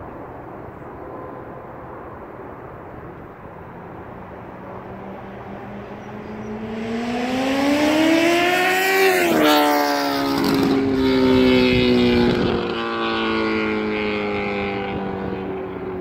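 2014 Honda CBR1000RR inline-four sportbike on an unbaffled Austin Racing GP2R carbon exhaust, with no dB killer and no cat, flying past at speed. Its pitch and loudness climb as it approaches, drop sharply as it passes about nine seconds in, then sink slowly as it pulls away and fades.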